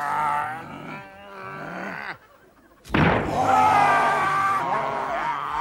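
Several men making wordless grunts and groans. They break off for a moment about two seconds in, then come back abruptly and louder, with sustained groaning cries.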